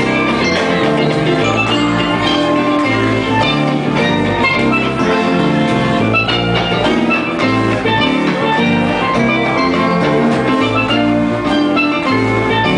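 Live band music with steel pans playing the melody over strummed acoustic guitar.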